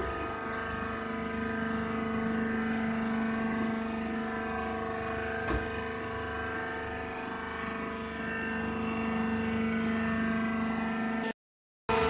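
A wood-chip baler's hydraulic power unit, an electric motor driving a pump, running with a steady hum of several fixed pitches. One short knock comes about five and a half seconds in. The sound cuts out abruptly near the end.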